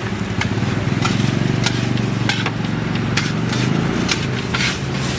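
Low engine rumble of a vehicle running close by, strongest between about one and four seconds in, with scattered sharp metal clicks and scrapes of a spatula on the burger griddle.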